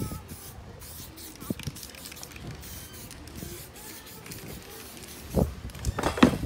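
Aerosol spray paint can hissing as paint is sprayed onto a canvas, over a steady low rumble.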